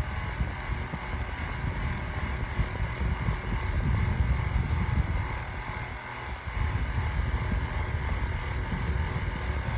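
Holmes Blizzard table fan running, very noisy, with a heavy low rumble and a few faint steady tones above it. About six seconds in the sound dips briefly and comes back louder as the fan is switched up to high speed.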